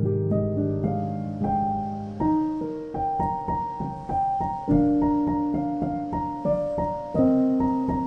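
Background piano music: a slow, gentle melody of notes that ring on and fade.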